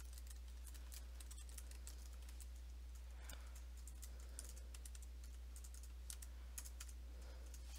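Computer keyboard being typed on: faint, irregular runs of key clicks, over a steady low hum.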